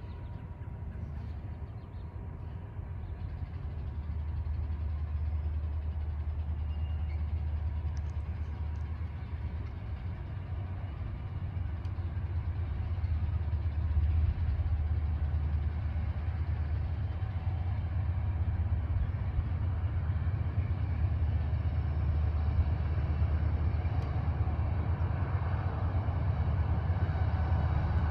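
Low rumble of an approaching CSX freight train's diesel locomotives, still out of sight, slowly growing louder.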